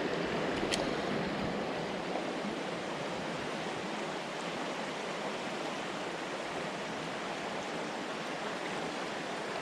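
Mountain stream water rushing steadily, with a single click about a second in.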